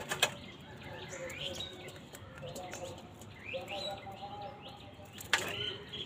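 A flock of house crows cawing and calling over one another while they feed, with short high rising calls among the lower caws. Two sharp clicks cut through, one just after the start and one about five seconds in.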